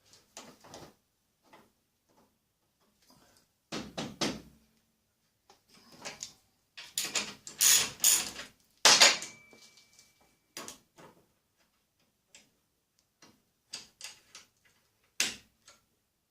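Scattered clicks and knocks of metal parts and hand tools being handled, with a cluster of louder knocks and rattles in the middle.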